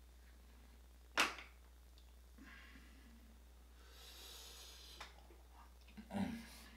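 Close-up eating sounds of king crab: a sharp crack about a second in as the crab leg is handled, soft wet rustling as it is dipped in butter sauce, then a wet bite and chewing near the end.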